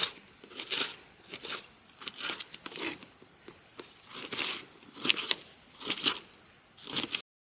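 Crickets chirring steadily, with a series of irregular sharp knocks from a knife cutting onions on a board. The sound cuts off abruptly near the end.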